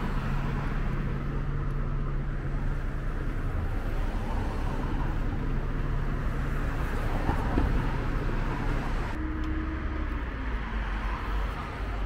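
Road traffic: a city bus driving past with a steady low engine hum over the hiss of passing cars. About nine seconds in the hiss drops away and an engine note slides down in pitch.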